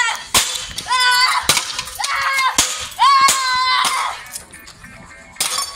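Hammer blows smashing a ceiling fan with glass light shades on concrete, several sharp cracking impacts. Between the blows come high-pitched yells.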